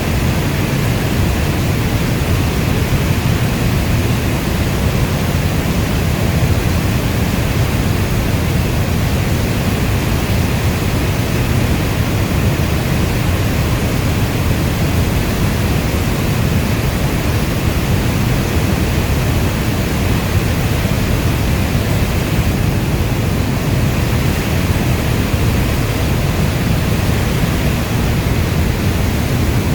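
Steady heavy rain, a dense, even rush that is deepest at the low end, with no single drops, thunder or other events standing out.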